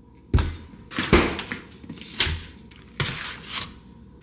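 A run of sharp knocks and thuds in a small room, about six in four seconds, each with a short low thump.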